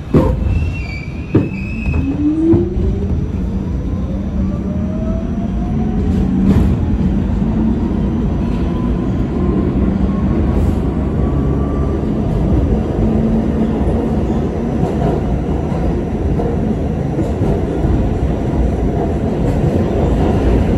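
R68 subway train accelerating: its traction motors give a whine that climbs steadily in pitch over about ten seconds, over a continuous heavy rumble of wheels on rail, with a few sharp knocks in the first couple of seconds.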